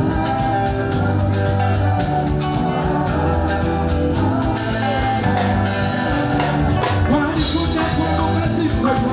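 Live band music with a steady beat and held bass notes, a voice singing over it in the second half.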